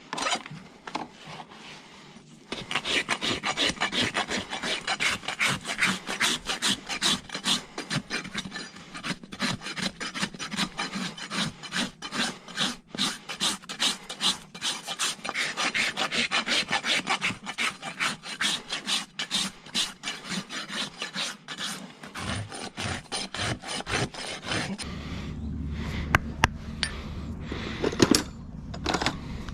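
Farrier's rasp filing a horse's hoof wall in quick, rhythmic strokes. Near the end the rasping stops and a steady low hum comes in.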